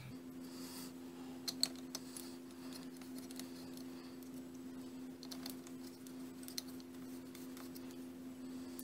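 Faint light clicks and taps of a small metal hex key being handled on a workbench, with two sharper clicks about a second and a half in, over a steady low hum.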